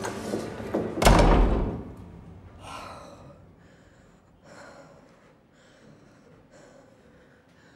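A heavy street door slams shut about a second in, with a short echoing tail. Then a woman breathes hard in a series of short gasping breaths.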